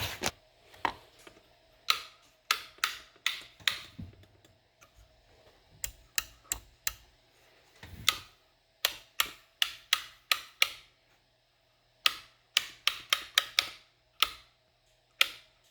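Rocker switches on an eight-switch panel clicking as they are flipped: about thirty sharp clicks in quick runs, several a second, with short pauses between the runs.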